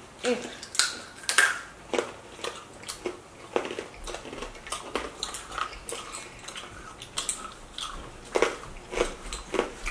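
Brittle dalgona (Korean honeycomb sugar candy) being bitten and chewed by two children: a string of sharp, irregular crunches.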